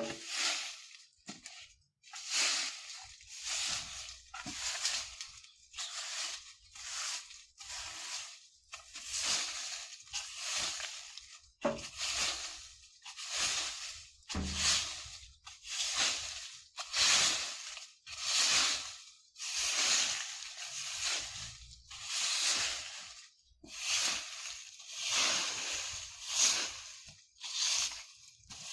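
A broom sweeping dry leaves across the ground in steady strokes, about one swish a second, each with the rustle and crunch of the leaves.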